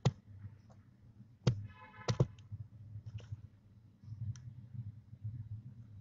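Barn owlets in a nest cavity making a few sharp clicks and knocks, the loudest a pair close together about two seconds in, with a short pitched sound just before them and fainter ticks later, over a low steady hum.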